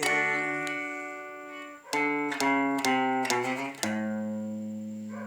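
Instrumental music led by guitar, no singing. A chord rings and fades at the start, a few single notes follow about two seconds in, and a held chord comes in near the end.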